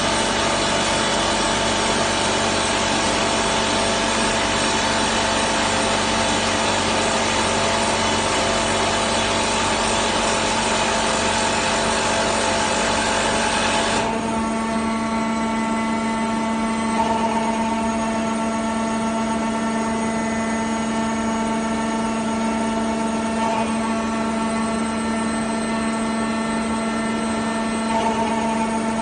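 Drilling jumbo at work: a dense mechanical racket over a steady machine hum, which cuts off abruptly about halfway through and leaves only the steady hum of the running machine.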